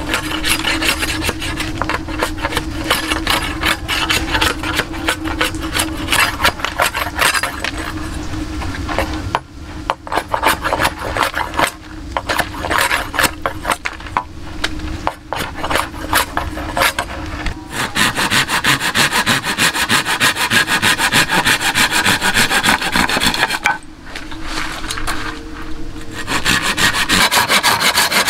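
A hand tool rasping on wood in quick, continuous strokes, like sawing or scraping. The sound breaks off and changes character abruptly three times.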